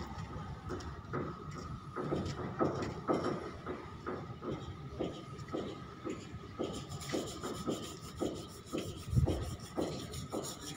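Repeated rubbing or scraping strokes, about two to three a second, over a faint steady tone, with a low thump near the end.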